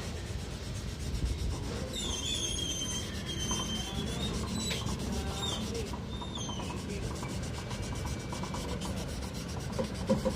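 Wet sandpaper rubbing back and forth over dried touch-up paint on a car body panel, levelling the repaired scratch, with a few short high squeaks about two seconds in and again around six seconds.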